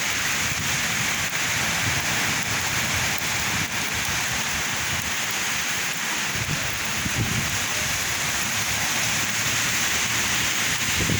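Heavy rain falling steadily, driven by strong wind, with gusts buffeting the microphone in low rumbles a little past halfway.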